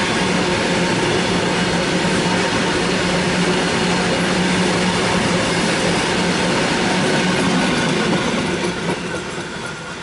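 BCNA covered freight wagons rolling past, their wheels clattering and rumbling on the rails over a steady hum. The sound falls away near the end as the last wagon goes by.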